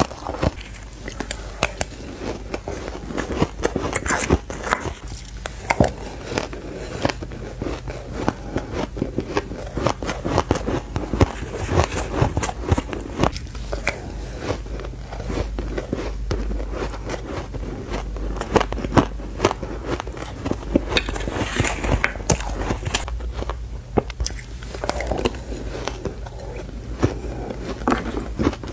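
Close-miked crunching and chewing of purple shaved ice: a dense, irregular run of crisp crunches as the ice is bitten and chewed.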